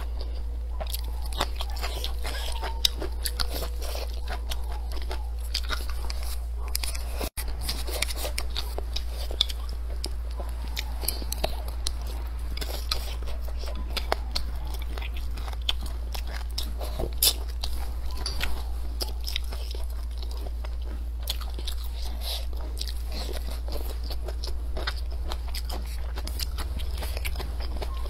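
Close-up biting and chewing of crisp green vegetables, with many irregular sharp crunches, over a steady low hum.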